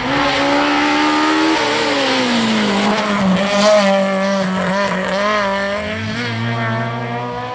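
Rally car engine at high revs, its pitch falling as the car slows for the junction, then holding and wavering with the throttle through the turn. A second car's engine joins, lower in pitch, near the end.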